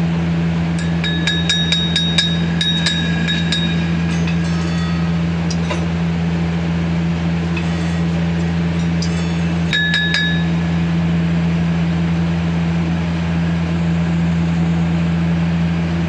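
Steady low machine hum from a stick-welding setup, with sharp metallic clinks and rings over it. The clinks come several a second during the first few seconds, with a short burst again about ten seconds in.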